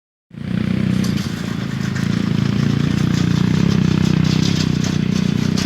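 Small engine of a hand tractor (plough machine) starting up within the first half-second, then running steadily at a fast, even rate.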